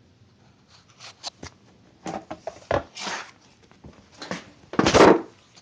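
A series of short clicks, knocks and rustles, like things being handled and moved around, with the loudest, a brief scuff, about five seconds in.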